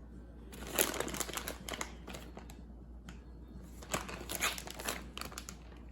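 Crinkling and rustling of cheese being scattered by hand over chicken in a pan, in two spells of quick crackly sounds.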